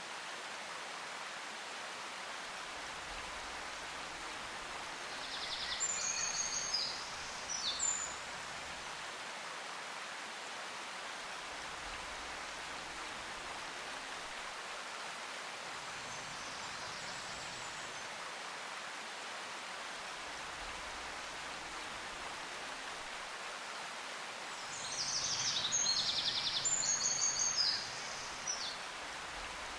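A steady, even hiss like running water or rain. Two short bursts of high, rapid chirping cut through it, one about six seconds in and a longer one about twenty-five seconds in.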